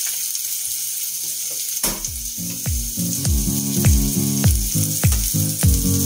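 Sliced onions sizzling as they fry in a steel pot on a gas burner, a steady high hiss. Background music with a steady beat comes in about two seconds in.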